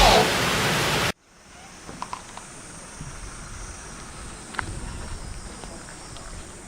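A loud intro sound cuts off abruptly about a second in, giving way to quiet outdoor ambience: a faint, steady, high-pitched drone of summer cicadas, with a few faint ticks.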